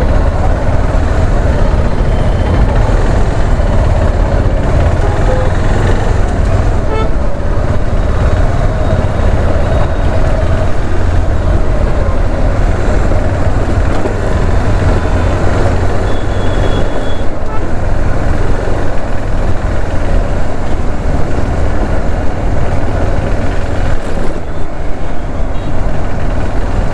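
Steady low wind rumble on a helmet-mounted action-camera microphone while riding a motorcycle in slow highway traffic, with the motorcycle engine and surrounding traffic running beneath it. A short high tone sounds about 17 seconds in.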